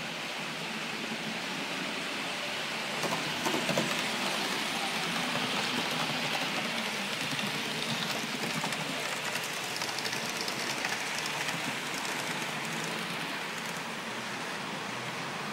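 Model trains running on layout track: a steady rolling hiss, with a short cluster of clicks a few seconds in.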